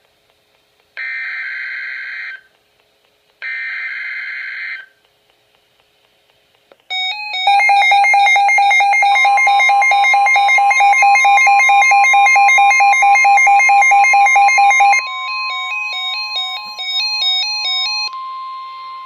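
Emergency Alert System signalling on NOAA Weather Radio: the last two of the three screeching data bursts of the SAME header, each just over a second long. After a pause of about two seconds comes a loud, fast-pulsing electronic alarm that turns into a quieter stepping beep pattern about eight seconds later. Under it, from about two seconds after the alarm begins, runs the steady 1050 Hz warning alarm tone for about ten seconds.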